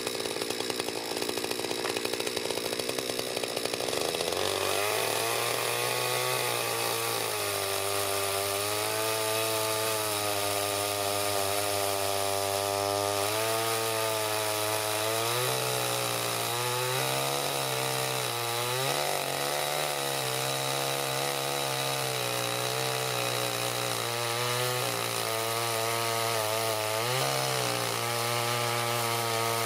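Chainsaw running at high speed and cutting wood. A steady engine note sets in about four seconds in and sags several times as the chain loads up in the cut.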